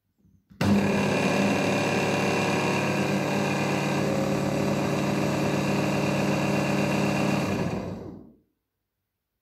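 SilverCrest hand blender motor driving the chopper attachment's blade in an empty bowl. The motor switches on sharply, runs at a steady high speed for about seven seconds, then spins down and stops near the end.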